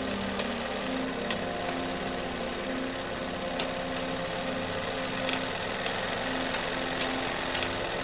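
A steady machine-like drone: an even hiss over a low, two-note hum, with scattered sharp clicks. It cuts off suddenly at the very end.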